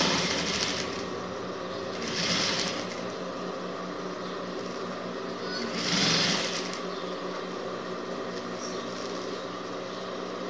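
Sewing machine stitching through layers of denim: a steady machine hum, with three louder spurts of fast stitching near the start, about two seconds in and about six seconds in.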